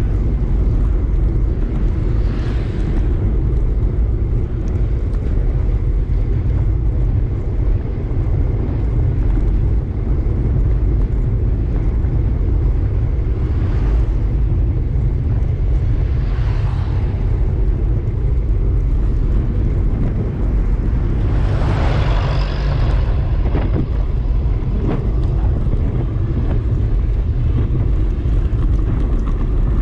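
Steady low wind and road noise on the microphone of a bike-mounted camera while riding, with a few vehicles passing; the loudest passes about two-thirds of the way through.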